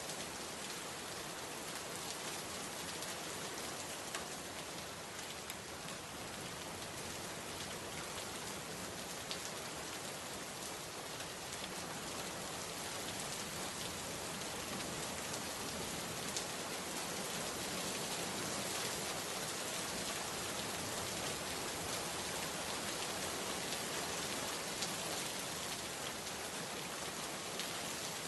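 Steady rain falling, a dense even hiss of drops on surfaces, growing a little heavier in the second half.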